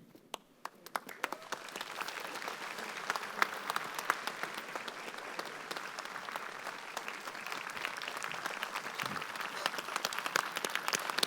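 Audience applause: a few scattered claps at first, building within about two seconds into steady clapping from many people.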